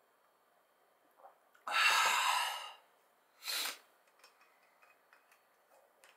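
A man's loud breathy exhale after a swallow of liquor, starting suddenly about two seconds in and fading over about a second, then a second shorter exhale.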